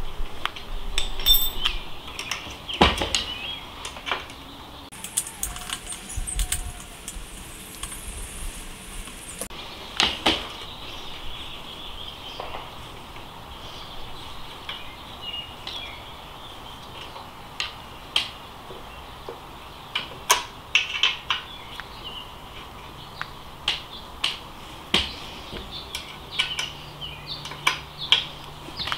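Irregular metallic clicks and clinks of a hex wrench and small brake parts being handled while an e-bike disc brake is put back together, with a few seconds of rustling about five seconds in.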